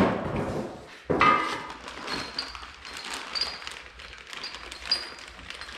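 A knock right at the start and another about a second in as packed metal parts are handled, then crackling and rustling of plastic wrapping as the parts are unwrapped.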